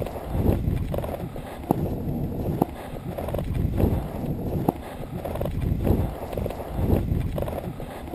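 Skis or a snowboard sliding and carving over firm groomed snow: a low scraping rush with wind buffeting the microphone and a few sharp knocks as the board or skis chatter over the rollers.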